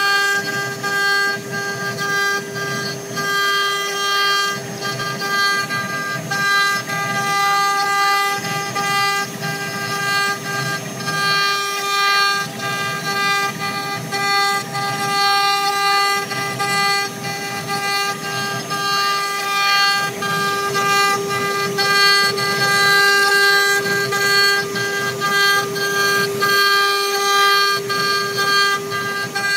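CNC router spindle running with a steady high whine while its engraving bit cuts a relief into a board, with uneven cutting noise beneath the whine.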